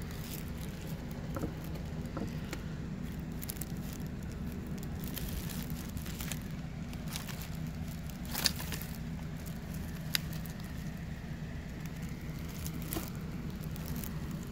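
Clear plastic packaging crinkling and rustling as it is handled, with scattered small crackles and two sharper clicks about eight and ten seconds in, over a steady low hum.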